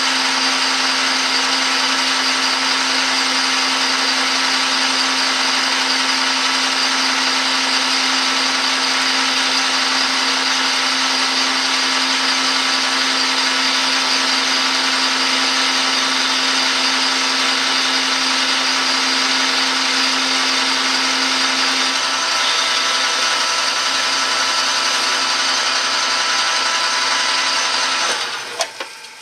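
Metal lathe running steadily, its motor and gearing giving a constant whine and hum while a cutting tool turns down a brass workpiece. One low tone in the hum drops out about three-quarters of the way through, and the machine winds down near the end.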